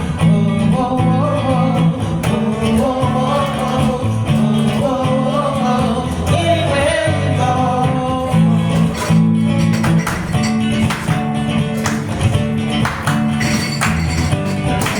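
A song performed with a singing voice over a guitar-led backing with a steady bass line. The voice drops out about halfway through, leaving the guitar strumming.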